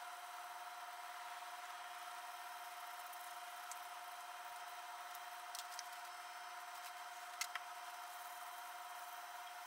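A steady high-pitched hum over an even hiss, with a few faint ticks and a small tap about seven and a half seconds in.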